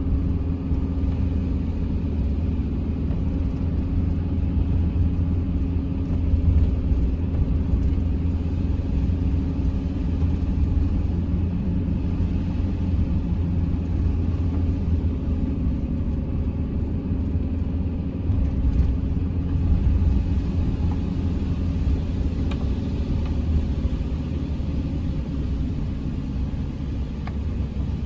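Steady low rumble of a campervan driving on the road, engine and road noise without change.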